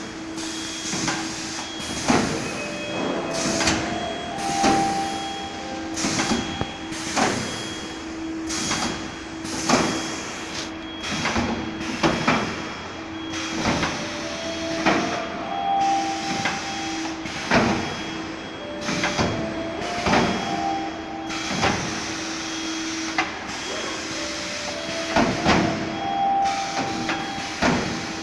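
Robotic spot-welding line in a car body shop: irregular clanks and knocks, one every second or two, over a steady machine hum, with short whines that come and go.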